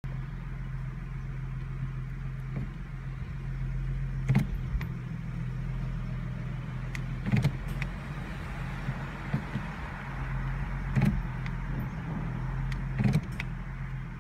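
2015 Ford Mustang idling with its automatic transmission clunking four times as the shifter is moved, a sharp thump each time over the steady engine hum. It is the clunk the owner gets on selecting reverse from park, which shakes the car: a transmission fault.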